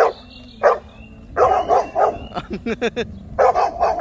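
Yellow Labrador retrievers barking in repeated short bursts, with a quick string of short barks in the middle. They are alarm-barking at a horse statue as if it were a real horse.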